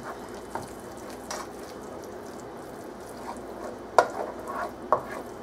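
A spatula stirring a thick spinach and ricotta mixture around a metal frying pan, with several short scrapes and knocks against the pan, the loudest about four seconds in, over a faint steady sizzle from the pan on the heat.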